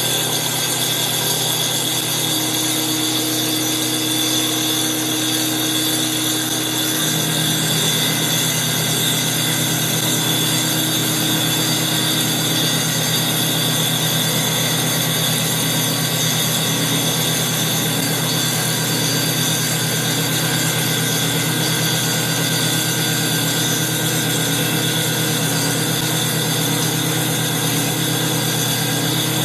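CNC wood lathe's circular saw blade cutting a spinning wooden baseball bat blank, with the motors running in a loud, steady mechanical whine and hiss. The low hum shifts about seven seconds in.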